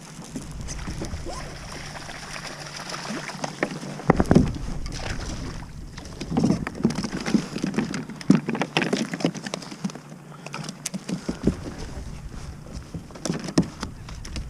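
Irregular knocks, bumps and clatter of gear being handled in a kayak, loudest about four seconds in, through the middle and near the end.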